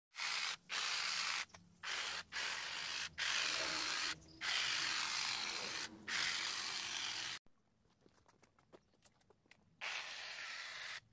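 Cordless hedge trimmer running in repeated bursts of one to a few seconds as its blades clip the leaves of a shrub, with short stops between bursts. After a pause of about two seconds, there is one more short burst near the end.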